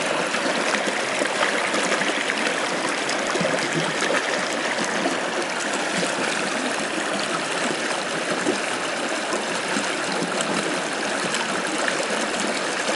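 Shallow rocky stream running steadily over stones and small rapids, an even rush of water.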